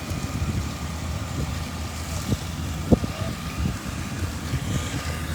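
Fire trucks' engines running at the scene, with a steady thin whine over a low, fluttering rumble from wind buffeting the microphone. A single sharp knock comes about three seconds in.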